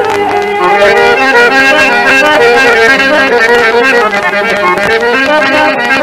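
Instrumental passage of a traditional Moroccan song: an ensemble of melody instruments plays an ornamented, winding tune without singing.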